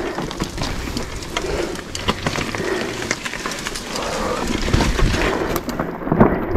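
Mountain bike rolling over a rough dirt trail: tyres on the ground with many quick clicks and knocks from the bike rattling, over a steady low rumble.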